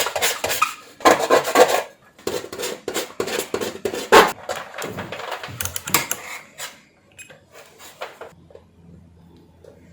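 Clicks, knocks and clatter of tools and test leads being handled on a workbench for about seven seconds, then only faint handling sounds.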